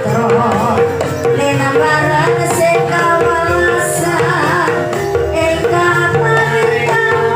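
Javanese gamelan music accompanying an ebeg dance: steady hand-drum (kendang) patterns under held, ringing pitched notes and a wavering melody line.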